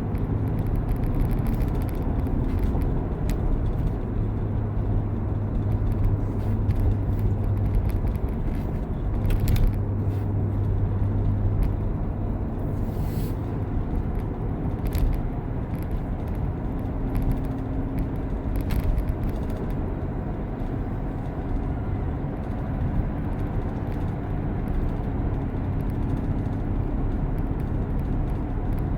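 C7 Corvette driving along at steady speed: continuous low engine and road rumble with a hum that swells and fades, and a few faint ticks.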